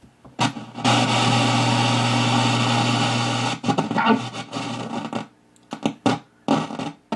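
Zenith K421W AM-FM radio's speaker giving out static hiss with a steady low hum, cutting out abruptly several times and crackling as its dirty switch contacts are worked. The hum is one the owner takes for probably failing filter capacitors.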